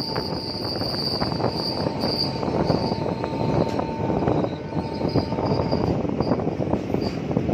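Passenger train running at speed, heard from an open coach door: wheels clattering steadily over rail joints and points, with a thin steady whine through the first few seconds.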